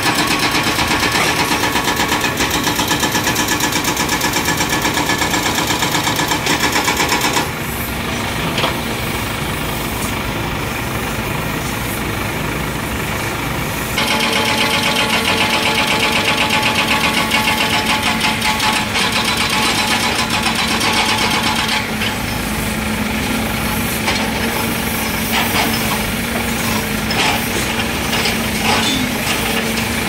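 Diesel engine of heavy demolition machinery running with a fast, even knock, dropping in level about seven seconds in and coming back about halfway; a few separate knocks near the end.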